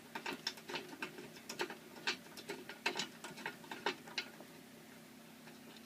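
Light, irregular mechanical clicks and ticks from a 1970s Superette vending machine's metal parts as it is handled, stopping about four seconds in.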